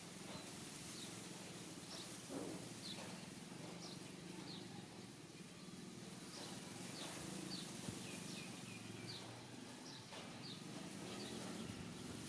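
Faint, short, high chirps from a small bird, repeating irregularly about once a second over a low steady hum.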